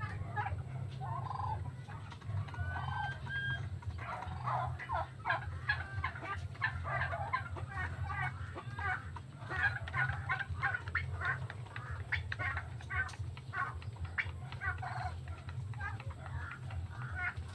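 Flock of domestic turkeys gobbling and clucking, with chickens among them; the calls come thick and fast from about four seconds in.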